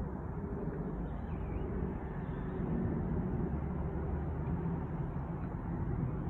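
Airbus A350 jet airliner passing high overhead: a steady, distant low rumble of its engines.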